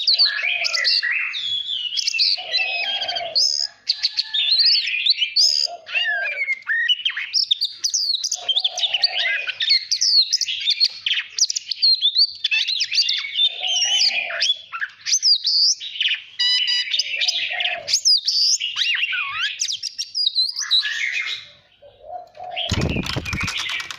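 Oriental magpie-robin singing a long, varied song of rapid whistled notes and fast-changing phrases, with short lower notes coming every two or three seconds. A brief crackling noise sounds near the end, just before it cuts off.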